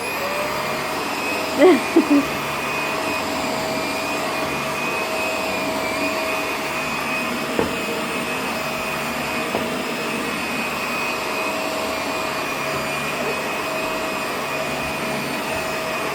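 Upright household vacuum cleaner switched on, its motor spinning up with a rising whine and then running steadily. A brief vocal sound cuts in about two seconds in.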